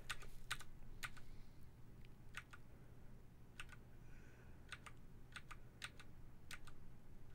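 A computer keyboard key tapped again and again, about a dozen sharp, separate clicks at uneven spacing, over a faint steady hum. These are the presses that skip a YouTube video forward five seconds at a time.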